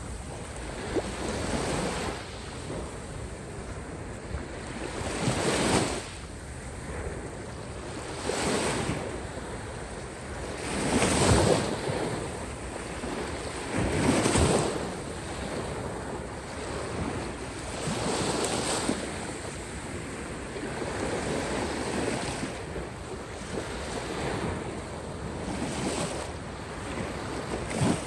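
Caspian Sea waves washing onto the shore, a louder surge every few seconds over a steady hiss of surf, with wind on the microphone.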